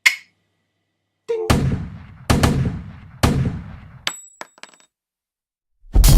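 Three loud gunshot-like bangs about a second apart, each dying away, followed by a brief high ring and a few light clicks, then a sudden loud crash near the end.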